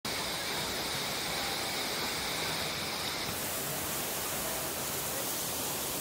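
Steady rushing noise of a waterfall and river, an even hiss with no breaks; its high end changes character about three seconds in.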